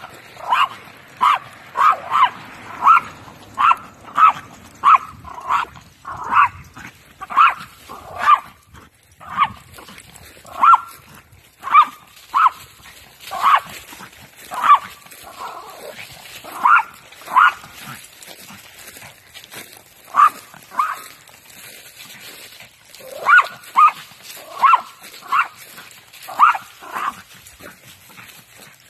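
A small dog barking over and over in quick runs of sharp barks, about two a second, with a couple of short pauses in the second half.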